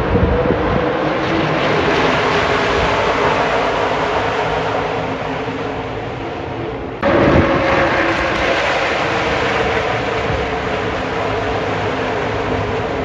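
NASCAR Craftsman Truck Series race trucks' V8 engines running at speed, a loud, dense, steady engine sound. It sags slightly, then jumps abruptly louder about seven seconds in.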